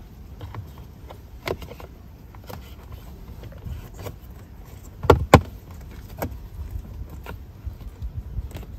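Plastic cabin air filter cover on a 2015 Ford F-150's filter housing being fitted by hand: scattered light plastic clicks and taps, then two sharp snaps about five seconds in as its clips lock into place.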